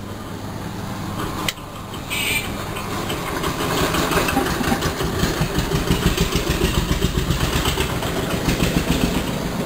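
A motor running with a rough, rapidly pulsing rumble that grows louder after about three seconds, over a steady low hum; a single click about a second and a half in.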